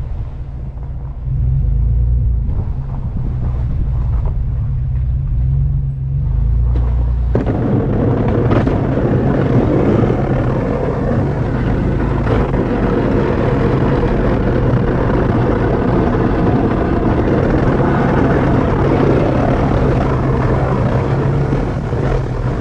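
Pickup truck running with a low steady rumble. About seven seconds in, a loud rushing noise sets in suddenly over it and keeps going.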